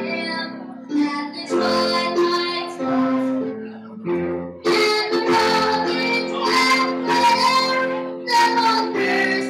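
A young girl singing a national anthem solo into a microphone, with instrumental accompaniment under her held notes.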